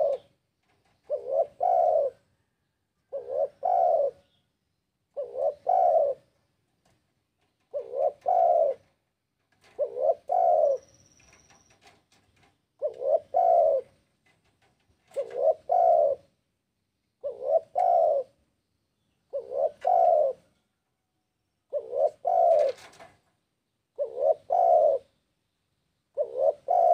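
Spotted dove (tekukur) cooing its song over and over, one phrase about every two seconds, each a short note followed by a longer double coo. It is the vigorous call of a bird in breeding condition, challenging rivals.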